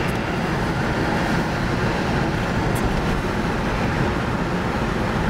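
Steady road and engine noise inside a moving car, with a faint click about three seconds in.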